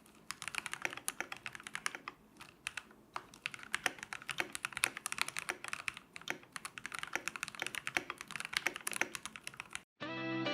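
Typing on a Keychron K8 Pro mechanical keyboard with its stock factory-lubed switches and Keychron OSA keycaps: a fast, continuous run of key clacks. The typing stops near the end, and guitar music starts.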